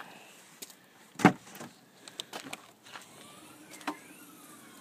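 Knocks and taps on SUV interior panels lined with sound-deadening mat. One loud knock comes about a second in, with lighter taps and clicks around it and a faint steady hum in the second half.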